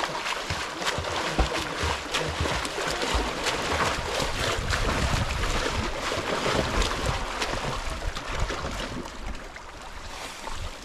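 River water rushing, with frequent short splashes.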